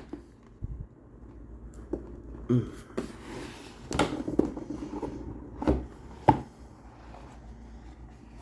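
A cardboard board game box and its contents being handled: several sharp knocks and taps as the lid and pieces are moved, with a short rustle in between.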